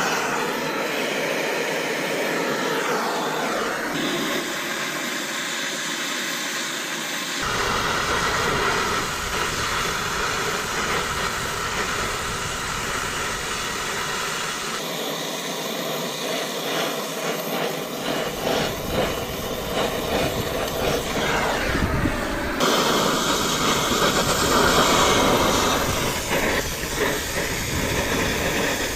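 Steady hiss of a brazing torch flame working on copper refrigerant line joints of a heat pump line set. The sound shifts abruptly several times.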